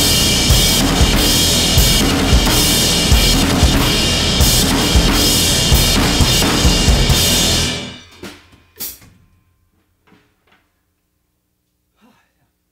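Drum kit played hard and fast, kick, snare and toms under constant cymbal crashes, stopping suddenly about eight seconds in. Two last hits follow, then a few faint knocks as the sticks are laid on the drum.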